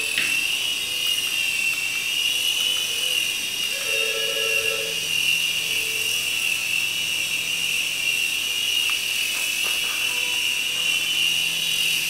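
X20 two-channel toy RC helicopter's electric motors and rotors running in flight, a steady high-pitched whine that wavers slightly in pitch as it lifts off the table and hovers.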